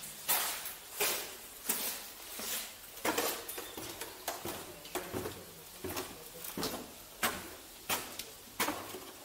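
Footsteps of a person walking at a steady pace, about one and a half steps a second.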